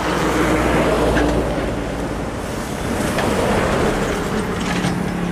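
Sumitomo 265 crawler excavator's diesel engine running, rising twice under hydraulic load as it works soil, with a few faint clanks.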